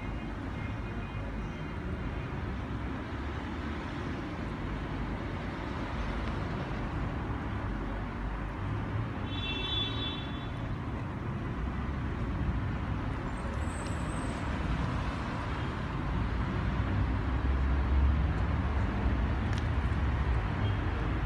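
Steady rumble of road traffic, with a brief high-pitched sound about halfway through.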